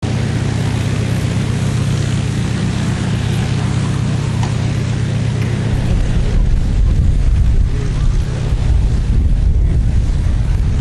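Wind buffeting the microphone over a steady low mechanical hum. The low wind rumble grows stronger and gustier about six seconds in.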